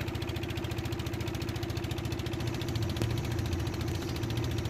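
Wooden fishing boat's engine running steadily under way, heard from on board, with a rapid, even beat.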